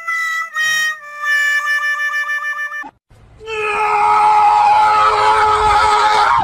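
Comedy fail sound effect: a few short notes stepping down into a long, wavering final note, like a sad trombone "wah-wah-wah-waaah", ending about three seconds in. After a short gap, background music with held notes comes in and plays on.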